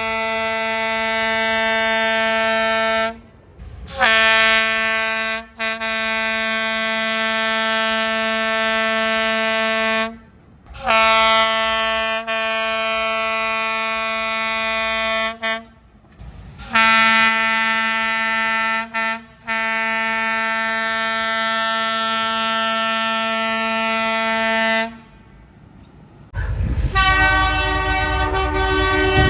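A train's single-note whistle signal sounded in a series of long, steady blasts, each two to five seconds with short breaks between. After a brief lull near the end, a different train signal with a rougher, multi-tone sound comes in over a low rumble.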